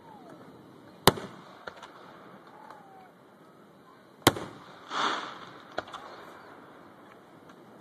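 Aerial fireworks shells going off: two sharp bangs about three seconds apart, the second followed about a second later by a short rushing hiss and a smaller crack.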